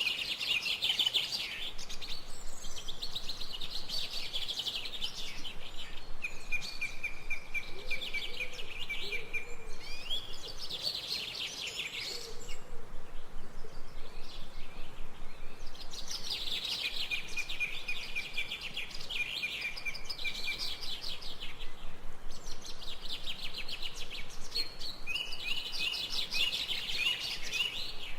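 Birds chirping and twittering in rapid high trills, in bouts of several seconds separated by short lulls.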